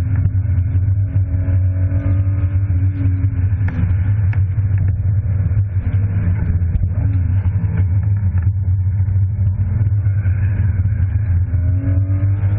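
BMW E36 325i's straight-six engine pulling hard at track speed, heard from inside the cabin over a heavy low drone. Its pitch climbs for the first few seconds, drops about three and a half seconds in, and climbs again near the end.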